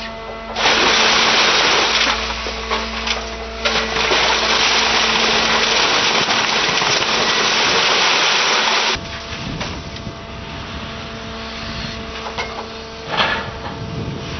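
Hydraulic scrap baling press running with a steady hum; from about half a second in to about nine seconds a loud, even rushing noise as the ram pushes a compressed scrap bale out of the press. Afterwards the hum carries on, with a few metal clatters near the end.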